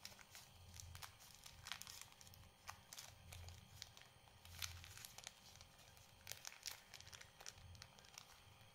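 Small clear plastic bag of spare earphone ear tips being handled and crinkled between the fingers: faint, scattered crackles, several sharper ones around the middle and later on.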